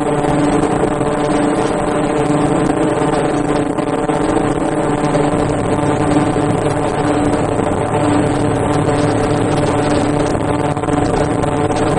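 Automatic ultrasonic fish-shaped mask forming machine running at speed, a loud, steady mechanical hum with a thin high whine above it.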